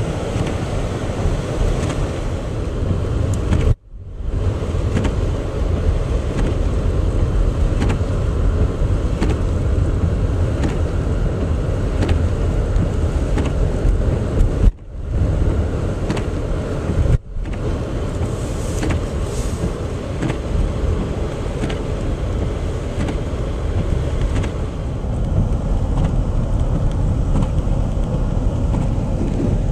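Steady road noise inside a moving car: engine and tyre rumble through the cabin, cutting out sharply for a moment three times.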